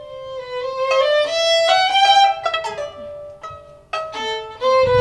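A violin playing a slow, simple melody of held notes that step and slide up and down, with a short pause about three seconds in.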